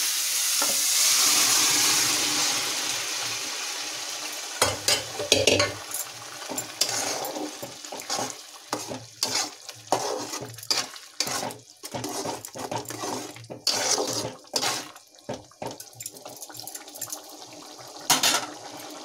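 Sizzling in a metal kadai that dies down over the first few seconds as the masala is thinned to a watery gravy. Then a metal ladle stirs the curry with repeated irregular clinks, knocks and scrapes against the pan.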